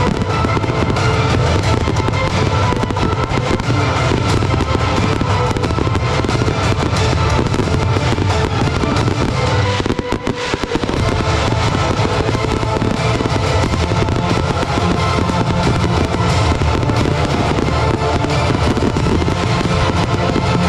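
Professional 1.3G display fireworks bursting and crackling in quick succession over loud music played for the show. The music dips briefly about halfway through.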